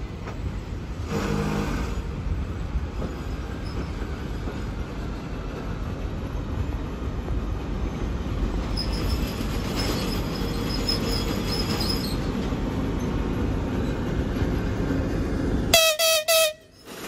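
TEP70BS diesel passenger locomotive approaching slowly, its engine and running gear making a steady low rumble that grows louder as it nears. As it passes close, near the end, it sounds a loud horn blast, broken into a few pulses.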